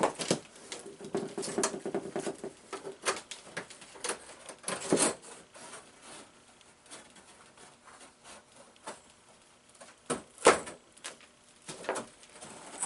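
Irregular clicks, taps and knocks of hands handling a coiled steel band sawmill blade, thickest in the first five seconds, with the loudest knock about ten and a half seconds in.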